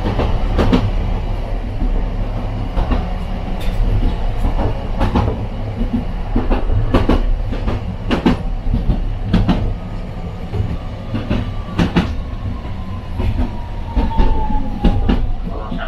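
Toden Arakawa Line tram running on its rails, heard on board: a steady low rumble with irregular clacks of the wheels over rail joints. In the second half a faint whine slowly falls in pitch.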